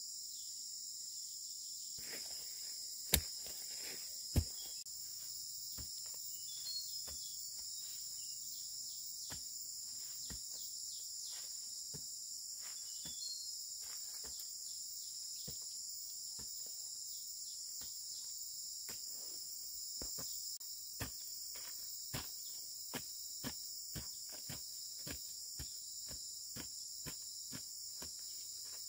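Steady, high-pitched insect chorus, with scattered sharp clicks and knocks: two louder knocks a few seconds in, and a run of lighter ticks, about two a second, in the last third.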